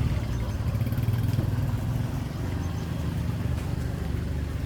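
A small engine running steadily with a low hum.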